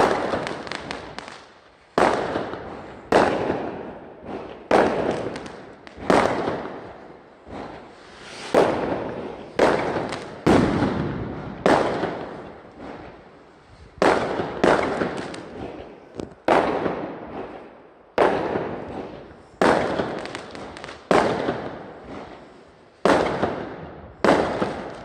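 Aerial fireworks bursting overhead: a long string of loud bangs, about one every second or so, each dying away over about a second.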